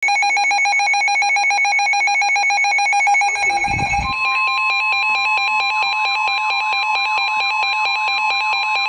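Emergency Alert System alert tones from a NOAA Weather Radio broadcast: a loud, rapidly pulsing electronic alarm tone, joined about four seconds in by a steady higher tone that fits the 1050 Hz NOAA Weather Radio warning alarm, with a warbling, siren-like tone over it. A short low rumble comes just before the steady tone starts.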